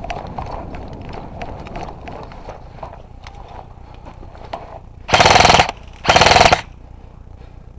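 Two short full-auto bursts from an airsoft electric rifle close by, each about half a second long and a second apart, about five seconds in. Before them come scattered clicks of other airsoft fire.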